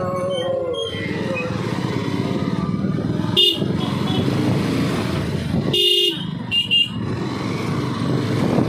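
Bajaj Pulsar 220 motorcycle riding along with its engine and road noise running steadily. A horn sounds briefly about three and a half seconds in, again about six seconds in, then gives two short toots.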